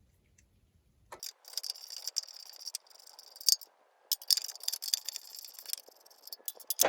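Ratchet wrench clicking fast in two runs of about two seconds each, then a few single clicks, as a nylon lock nut is worked off a bolt.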